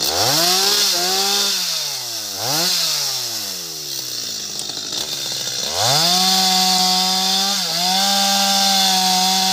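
Two-stroke chainsaw engine revved up and let fall back twice, dropping to a low idle for a couple of seconds, then opened up again and held at high revs, with one brief dip.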